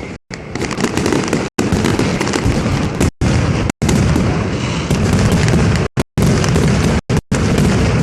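Fireworks or firecrackers exploding in a dense, continuous crackle of bangs. The sound cuts out completely for a split second several times.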